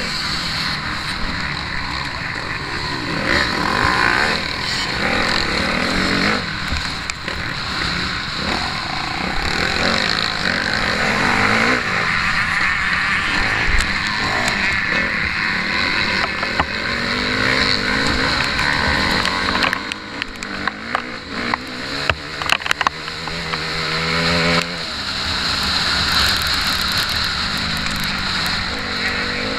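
Motocross bike engine revving hard and rising and falling with the throttle, heard from the rider's own bike. Around twenty seconds in the throttle drops back for a few seconds with sharp rattling knocks before it pulls up again.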